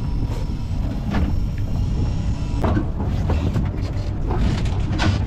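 A steady low rumble runs under a few short, separate noises of someone eating instant noodles and stirring them with chopsticks in the plastic bowl.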